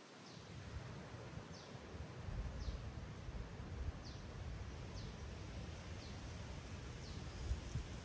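Quiet woodland ambience: a faint, short, high chirp with a downward slide repeats about once a second, over a low rumble that swells about two seconds in.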